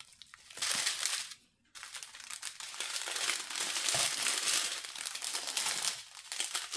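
Crinkling of small plastic bags of round diamond-painting drills being handled and flipped through. There is a short burst, a brief pause, then nearly continuous crinkling.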